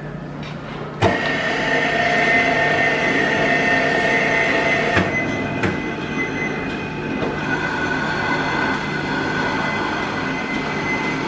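Lian Feng LF-BS12A 12-inch band saw running steadily, a motor hum under a high whine. A sharp click comes about a second in, after which it is louder, and two more clicks follow around five seconds in.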